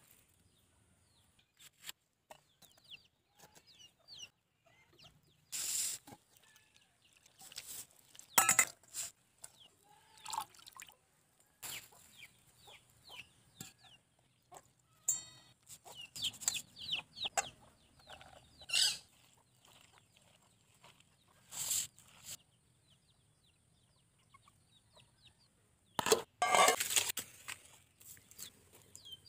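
Chickens clucking in the background, with occasional sharp knocks and clatters from hands-on cooking work, the busiest cluster near the end as firewood is handled at a clay stove.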